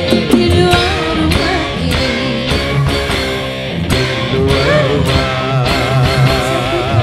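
Live dangdut band music in an instrumental passage: a lead melody over bass and a steady drum beat, the melody wavering with vibrato over the last couple of seconds.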